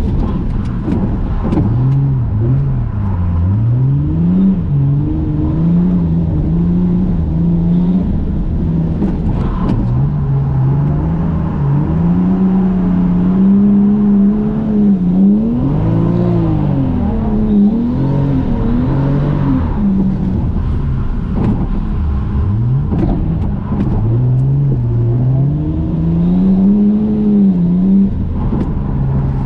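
Toyota JZX100 Mark II's engine heard from inside the cabin while drifting on a wet track, the revs rising and falling continually, with sharp dips and climbs back several times.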